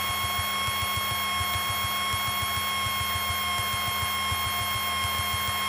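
Cockpit audio of a Piper Tomahawk in flight, taken through the headset intercom: a steady electrical whine with the engine's fast, low pulsing drone beneath it.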